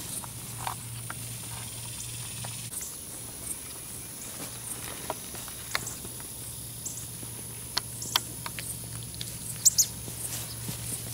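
Nine-banded armadillo rooting and snuffling in grass right at the microphone: scattered soft rustles and small clicks, with a few sharper clicks near the end.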